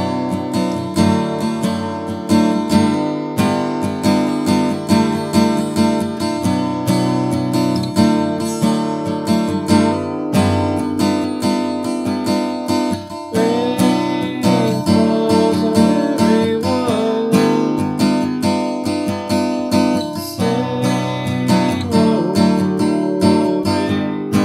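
Acoustic guitar strummed in a continuous run of open chords, capoed at the second fret with the high E string tuned down to D.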